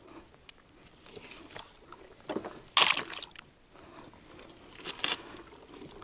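Water sloshing and splashing in short, irregular bursts, the sharpest about three seconds in and again about five seconds in.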